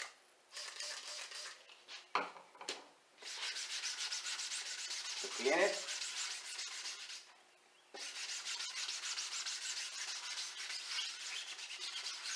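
Rapid rubbing strokes of a rag wiping down the face of a pickleball paddle with mineral spirits, cleaning the surface before it is painted. The wiping comes in runs with short pauses, and there are two brief squeaks, the louder one about halfway through.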